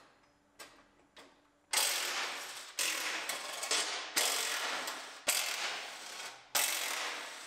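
A few light clicks, then a hand ratchet wrench clicking through about five strokes of roughly a second each, backing out fasteners on a pickup's front bumper.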